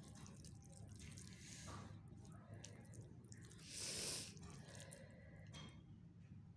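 Faint wet squishing and soft clicks of fingers mixing rice with chicken gravy on a steel plate, over a low steady hum. A short, louder hiss comes about four seconds in.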